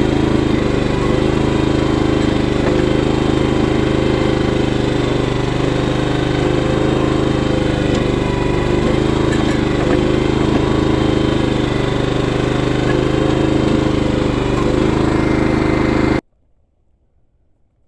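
Engine of a small bucket-equipped digging machine running steadily under work while it digs and packs wet dirt. It cuts off abruptly near the end.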